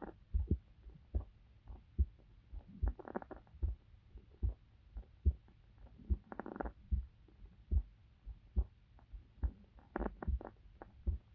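A person's heartbeat picked up close to the body: steady low thumps at about 75 beats a minute. A soft breathing noise swells three times, about every three and a half seconds.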